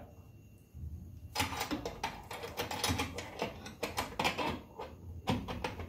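Wrench tightening the bolts that hold a stabilizer bar on a trolling motor's mounting bracket: quick, irregular clicks and ticks as the wrench turns and is re-seated on the bolt, starting about a second and a half in.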